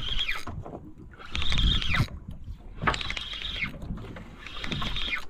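Spinning reel being cranked to bring in a small fish. Its whir recurs about every second and a half, with low thuds of water against the boat's hull in between.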